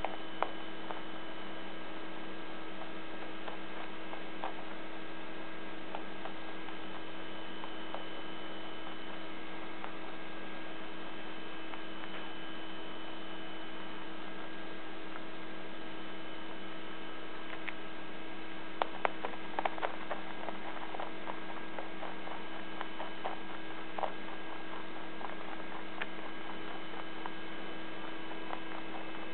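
Steady electrical hum made of several fixed tones, with a few faint clicks scattered through and a short cluster of clicks about two-thirds of the way in.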